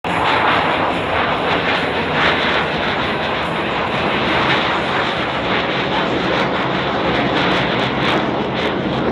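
The twin General Electric F414 turbofan engines of an RAAF F/A-18F Super Hornet are heard as a loud, steady jet rush as the fighter flies past in a display pass. The sound starts abruptly, and a crackle in the exhaust grows stronger over the last few seconds.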